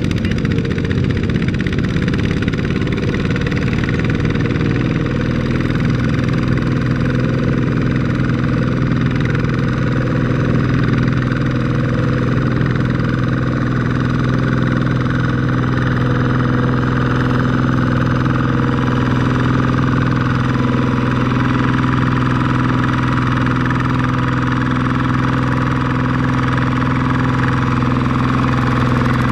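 Single-cylinder diesel engine of a two-wheel walking tractor (power tiller) running steadily under load as it hauls a loaded trailer through deep mud.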